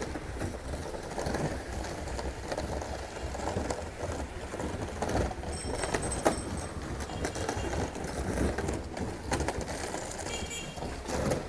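A white fridge lying on its side scraping and rattling along the asphalt as a bicycle drags it, over city street traffic noise.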